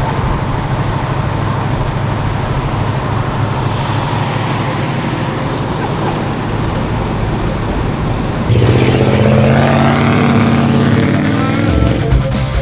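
Car engine running steadily, then about eight seconds in a louder engine comes in, revving with its pitch rising and falling.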